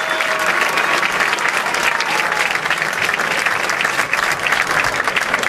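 Audience applauding: dense, steady clapping from a crowd in the stands.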